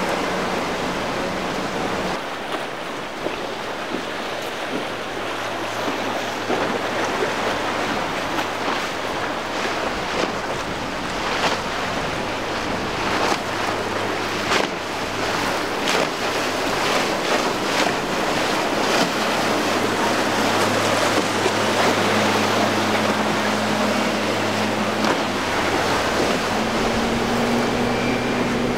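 Outboard motors humming steadily under the hiss of choppy, breaking surf, with wind buffeting the microphone. In the middle a run of short sharp knocks comes as a hull slams through the waves.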